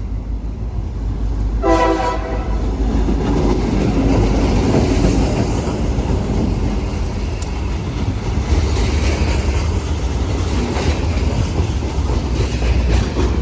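CSX freight train passing close by: the diesel locomotive's horn gives a short blast about two seconds in, over the steady low rumble of the engine. Later the wheels of the hopper cars clack over the rail joints.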